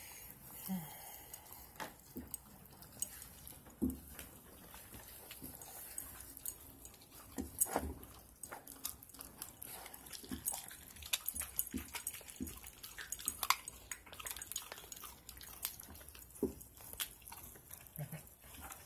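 Puppy gnawing on a raw chicken drumstick, bone and all: irregular wet crunches and clicks of teeth on meat and bone.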